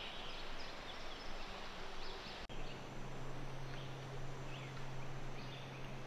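Woodland outdoor ambience: a steady hiss with short, faint bird chirps scattered through it. About halfway through, a low steady hum comes in.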